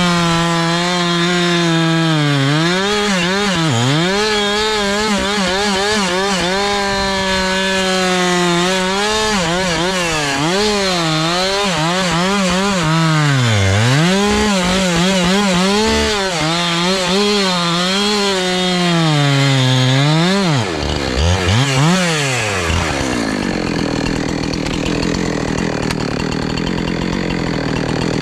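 Two-stroke chainsaw running at high revs, bucking a dead basswood log into sections; the engine pitch sags again and again as the chain loads up in the cut and recovers between. About three quarters through it dips and revs twice, then settles into a steadier, rougher sound.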